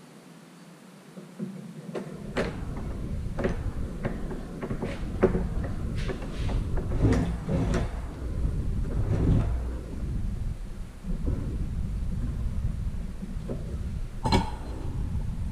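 Irregular knocks and clanks of metal parts being handled and fitted during rear-end and hub assembly, with one louder ringing metal clank near the end. A steady low rumble comes in about two seconds in and runs under them.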